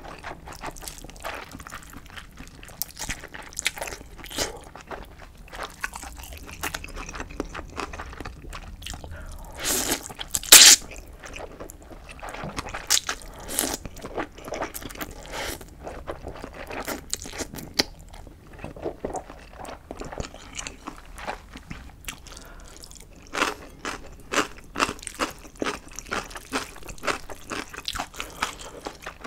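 Close-miked slurping and chewing of instant ramyeon noodles: a steady run of short wet mouth clicks and smacks, with a louder burst about ten seconds in.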